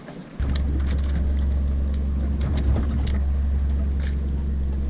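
A boat engine comes on about half a second in and runs with a steady low hum. Scattered light clicks and rattles sound over it as tackle and a bait package are handled.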